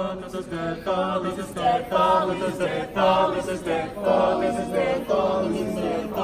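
A group of teenagers singing together in chorus, several voices held on sustained notes.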